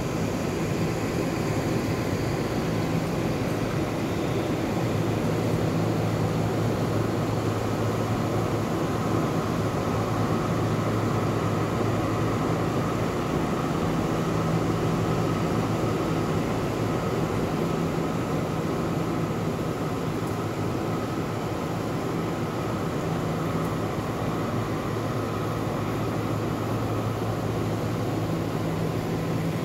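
Ventilation fans running: a steady rush of air with a low hum.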